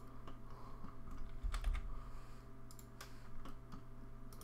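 Scattered key presses on a computer keyboard, a few irregular clicks and taps in small clusters, over a faint steady hum.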